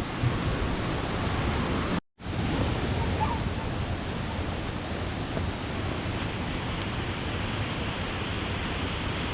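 Steady rushing of a small waterfall, an even wash of water noise that drops out briefly about two seconds in.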